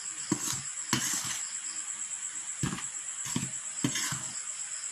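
Metal spoon stirring a dry flour and cornstarch mix in a stainless steel bowl, clinking against the bowl about seven times at irregular intervals.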